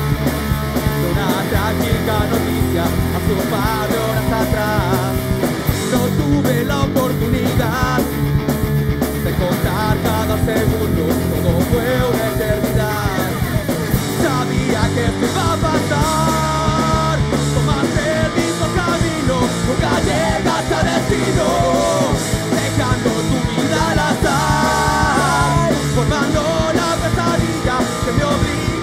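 Live rock band playing a song at a loud, steady level: drum kit with crashing cymbals under electric guitars and bass, with no words.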